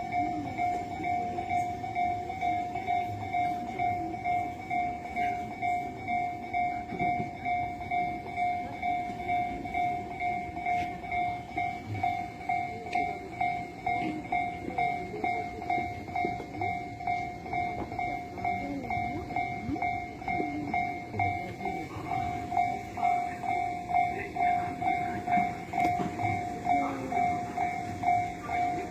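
Japanese railway level crossing's electronic warning bell ringing over and over at a steady pace, about one and a half dings a second, with low rumbling noise beneath it.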